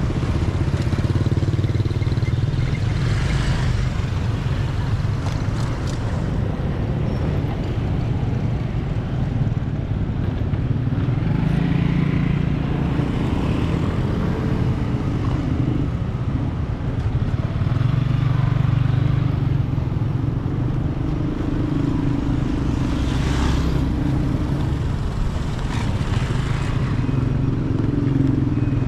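Road traffic of small motorcycles and scooters with a few cars driving past one after another over a railway level crossing. Their engines keep up a steady hum, and each passing vehicle swells and fades, several times.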